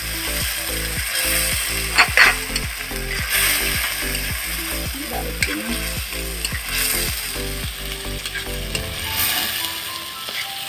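Onion, garlic and ginger paste sizzling in hot oil in a large black wok-style pan. A metal spatula scrapes and taps the pan in quick, repeated stirring strokes, with a couple of sharper clinks about two seconds in.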